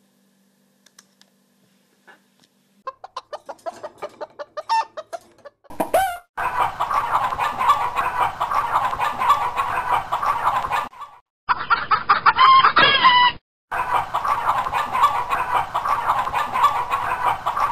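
Chicken clucking sound effects for a cartoon chicken. After a near-silent start, single clucks come faster and faster. Then a dense, steady run of clucking breaks off twice and starts again.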